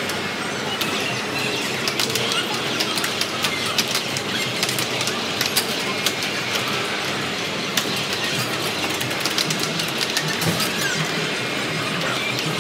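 Air hockey puck clacking against the mallets and table rails, many sharp knocks coming irregularly, over the steady din of a busy arcade.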